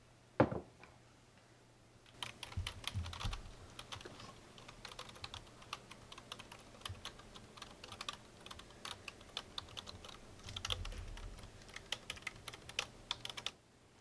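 A single knock about half a second in as a mug is set down on a wooden desk. Then typing on a computer keyboard: a fast, uneven run of key clicks from about two seconds in that stops just before the end.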